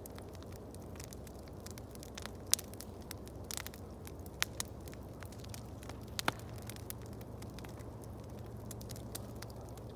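Wood fire crackling, with irregular sharp pops, a few of them louder, over a steady low rumble.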